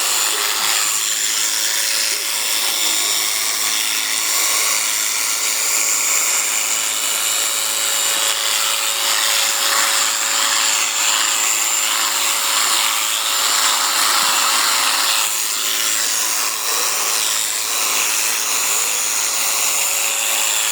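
Electric sheep-shearing clippers running steadily, a constant motor whine under a dense high hiss.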